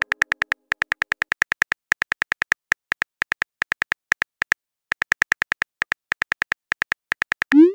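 Phone-keyboard typing clicks from a texting-story app: rapid, evenly spaced ticks, about eight a second, in runs broken by short pauses. A short rising tone comes near the end.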